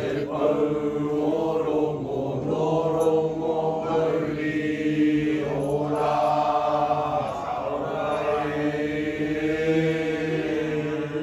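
A group of voices chanting a Māori song in unison, in long held phrases on a nearly steady pitch.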